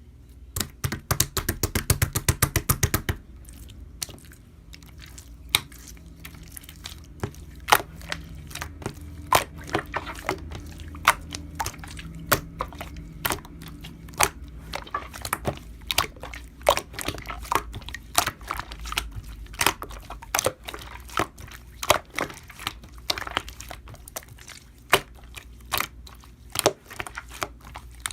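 A quick run of sharp clicks or taps for the first few seconds, then irregular single clicks and taps, roughly one or two a second.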